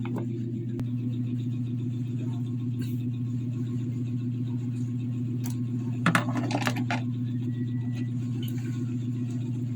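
Small clicks and rattles of plastic and metal parts being handled as a Bluetooth speaker is put back together, with a burst of several quick clicks about six seconds in. A steady low hum runs underneath.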